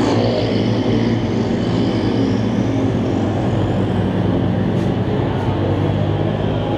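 Small-engine race cars running on the track, a steady, unbroken engine drone.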